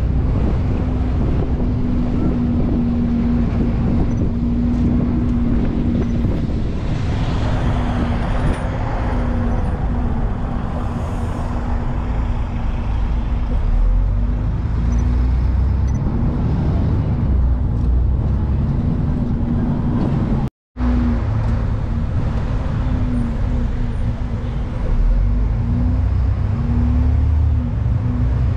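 Open-top double-decker tour bus riding through city traffic: a steady rumble of the bus engine and road noise with a constant low hum. The sound cuts out for a moment about two-thirds of the way through.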